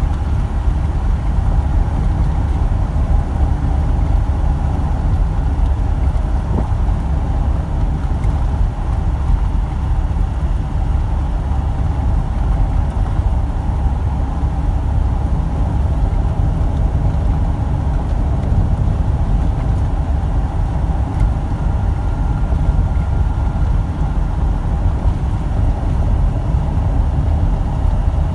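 Inside a truck cab on the move: a steady low engine drone and road rumble from the tyres on worn, patched asphalt.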